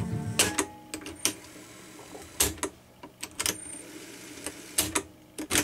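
Piano-key transport buttons of an Aristona AR9147A cassette deck (a rebadged Philips N2509) clunking as they are pressed and released, about six sharp mechanical clicks spread over several seconds. The music playing from the tape cuts off at the first click.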